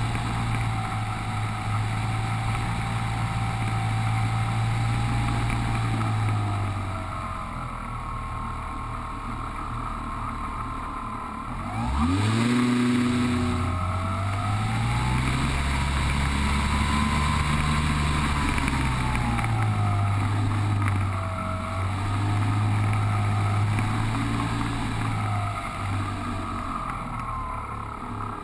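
Electric motor and propeller of an E-flite Apprentice 15e RC plane heard from on board in flight: a whine that rises and falls in pitch with the throttle. About twelve seconds in the pitch sweeps sharply up, and near the end it drops away as the throttle comes back.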